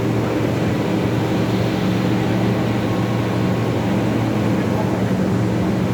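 Absorbent cotton machine running: a loud, steady mechanical drone with a low hum underneath.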